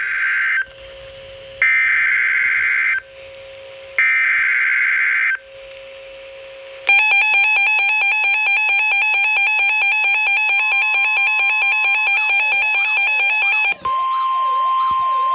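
Emergency Alert System warning opening: three bursts of screechy digital header data with a fainter low hum-like tone between them, then a loud, rapidly pulsing alert tone. From about 12 s warbling up-and-down siren-like sweeps join in, and near the end a steady single alert tone sounds over them.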